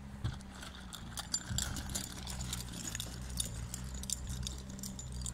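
Many quick metallic clicks and clinks, irregular and overlapping, over a steady low engine hum.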